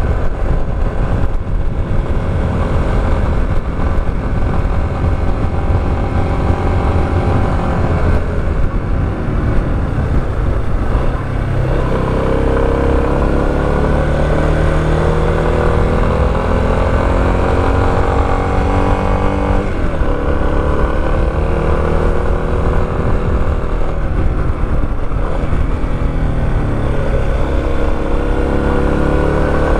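Motorcycle engine running under way, its pitch dropping about a third of the way in, then climbing in repeated rises with a brief sharp dip partway through as the rider works the throttle and gears, over a constant low rumble.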